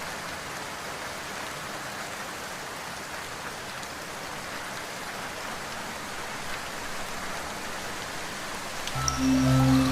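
Steady rain falling, an even hiss of raindrops with no thunder. Music comes back in near the end.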